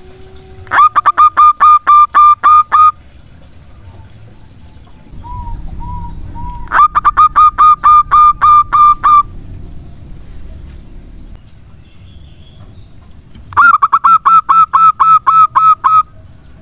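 Zebra dove (local perkutut) singing: three bouts of quick staccato coos, about ten notes each, roughly six seconds apart. A few fainter coos come just before the second bout.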